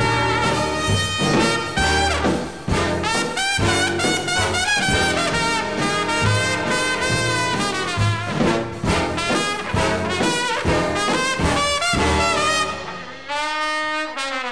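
Instrumental passage of a big-band swing recording, led by trumpets and trombones over a pulsing bass line. Near the end the band drops to a few held notes.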